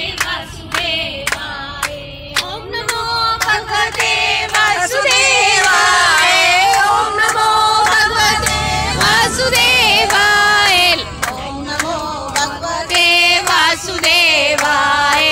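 A woman singing loudly into a handheld karaoke microphone, with a steady beat of hand clapping from the others around her.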